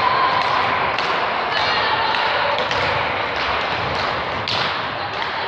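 Volleyball being struck during a rally on an indoor court: a few sharp thuds over the steady echoing hubbub of the gym hall.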